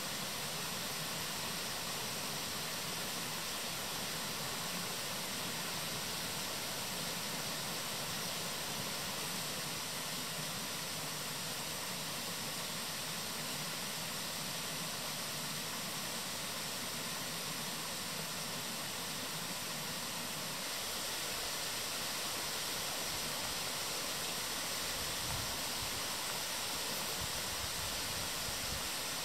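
Small forest stream flowing: a steady, even rush of water that neither rises nor falls.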